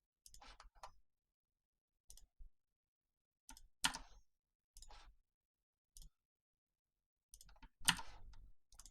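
Irregular clicks of a computer mouse and keyboard while working in CAD software, a dozen or so short clicks with pauses between them. The loudest come about four seconds in and just before the end.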